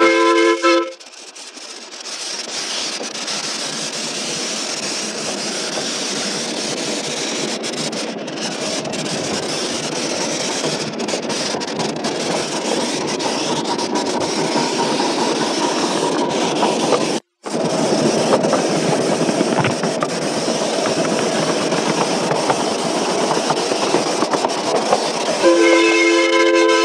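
Miniature steam locomotive on the move: a short blast of its steam whistle, then a steady rushing running noise on the track, and the whistle sounding again near the end. The sound cuts out for an instant about two-thirds of the way through.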